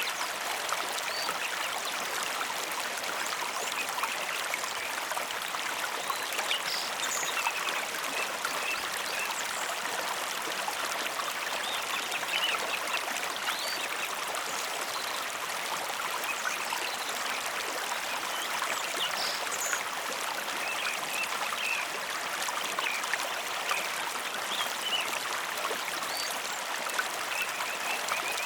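A mountain river flowing steadily, a continuous rush of water with small trickling sounds scattered through it.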